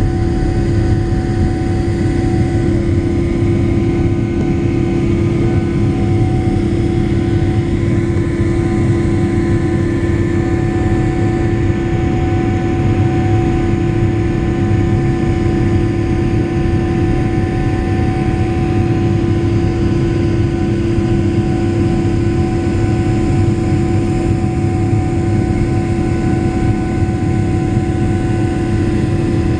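Boeing 777's twin jet engines running at high takeoff power, heard from inside the passenger cabin: a loud, steady rumble with a constant droning hum and fainter higher tones.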